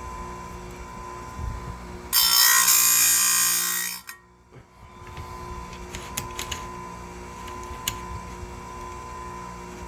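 Electric chainsaw sharpener's grinding wheel spinning with a steady hum and light ticks. About two seconds in, the wheel grinds against a saw-chain tooth, making a loud rasp for about two seconds. The sound then drops away sharply before the hum comes back.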